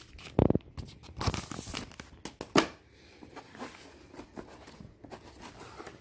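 A plastic pouch holding paper instruction booklets, crinkling and being torn open, with sharp crackles and a thump in the first three seconds. After that come only faint rustles of the paper booklets being handled.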